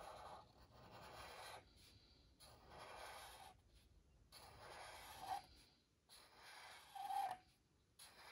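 Sharpie permanent marker drawn across paper in a series of short outlining strokes: a faint scratchy rubbing, each stroke about a second long, with brief squeaks of the felt tip about five and seven seconds in.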